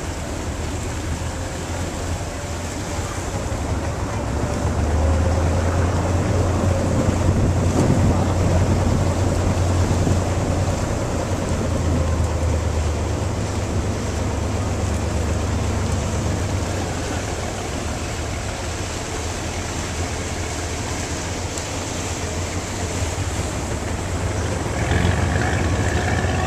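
Motorboat engine running steadily under way, with water wash and wind buffeting the microphone. The engine's low hum grows louder for a stretch in the middle.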